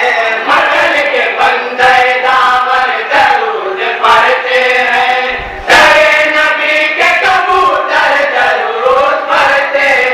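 Men's voices chanting a devotional song together through a microphone and loudspeaker, unaccompanied, with long held notes; the sound surges suddenly louder just before the six-second mark.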